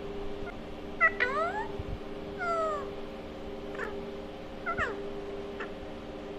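Alexandrine parakeet making a few short gliding calls while its head is stroked: a cluster about a second in, a longer call that falls then rises about two and a half seconds in, and shorter ones later. A steady hum runs underneath.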